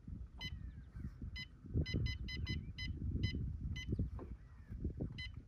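Key-press beeps from a Humminbird Helix 10 fish finder as its menu buttons are pressed: about ten short, high electronic beeps at an uneven pace, over a low rumbling noise.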